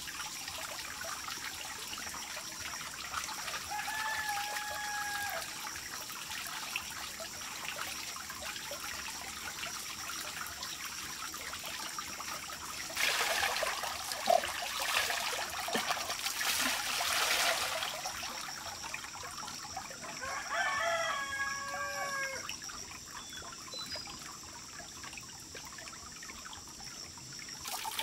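Water poured from a plastic ladle splashing over a plucked chicken on bamboo slats for several seconds in the middle, over a low steady trickle of water. A rooster crows about two-thirds through, after a shorter call a few seconds in.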